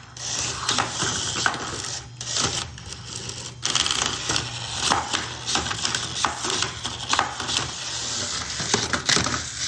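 Small toy battle robots clattering and rattling, a quick irregular run of hard plastic and metal knocks and clicks as they collide and scrape in their arena.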